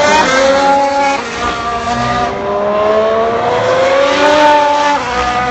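Formula 1 cars' 1.6-litre turbocharged V6 hybrid engines running at speed on the circuit: the engine pitch steps through gear changes, then climbs steadily as a car accelerates, with a second car's engine overlapping near the end.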